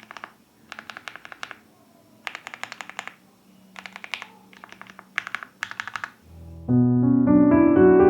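Typing on a Phase One 65 mechanical keyboard: short bursts of rapid keystrokes with brief pauses between them. About six and a half seconds in, piano music comes in louder.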